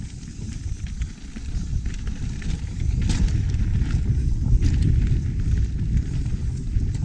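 Pivot Firebird 29 mountain bike riding a rough dirt trail: wind rumbling on the microphone, with tyres on dirt and rock and scattered clicks and rattles from the bike. It grows louder about two and a half seconds in.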